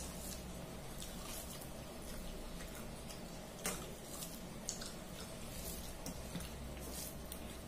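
Fingers mixing rice with fish curry on a steel plate: soft wet squishing and scattered light clicks of fingers against the steel, one sharper click about halfway through, over a low steady hum.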